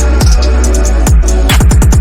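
Loud electronic background music with a heavy bass line and pitch-dropping kick drums that come in a quick run near the end.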